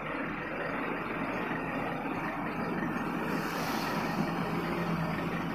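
Heavy Ashok Leyland truck's diesel engine running as the truck drives slowly past close by, with a brief hiss about three and a half seconds in.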